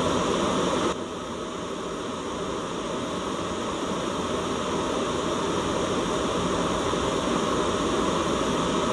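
Steady, full-range hiss of a white noise track. It dips suddenly in level about a second in and swells gradually back over the next few seconds.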